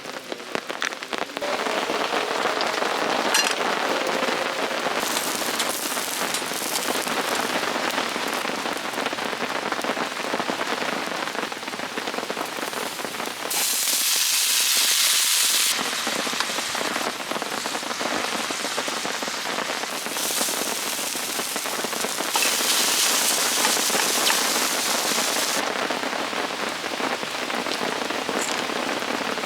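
Steady rain falling on a surface. It is a continuous hiss, with two stretches a few seconds long where the hiss is suddenly louder and brighter.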